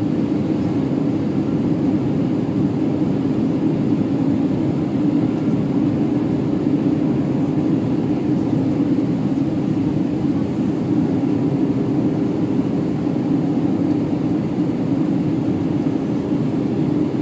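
Steady cabin noise of an Airbus A320 descending to land, heard inside the cabin at a window seat over the wing: engine and airflow noise, a constant low-pitched rush that does not change.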